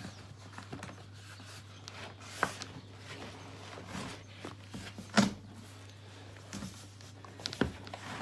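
Cardboard packaging being handled: a printed cardboard sleeve scraping and rustling as it is worked off a plastic case inside a box, with a few sharp knocks, the loudest about five seconds in.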